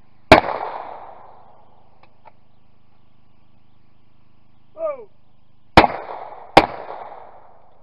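Over-and-under shotgun firing at clay targets: one loud shot just after the start, then a short shouted call for the clay, followed by a double, two shots under a second apart, each with a brief echoing tail.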